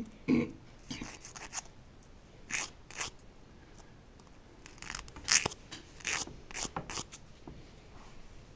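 Nail file rasping across a fingertip in short, irregular strokes that come in several bursts with pauses between, filing off the excess of a stick-on nail strip folded over the nail's edge.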